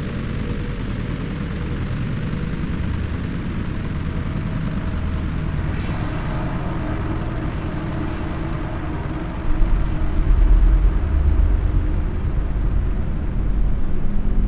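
Time-stretched ambient drone: a dense low rumble with a few faint held tones above it. The deep bass swells heavier and louder about nine and a half seconds in.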